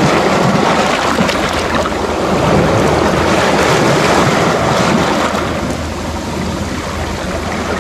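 Sea waves breaking and washing over the rocks and stones of the shoreline: a steady, loud rush of surf that eases a little after about five seconds.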